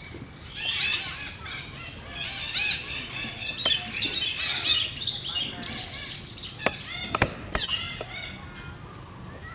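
Many small birds chirping and calling over one another in rapid, high-pitched notes, with a few sharp clicks about seven seconds in.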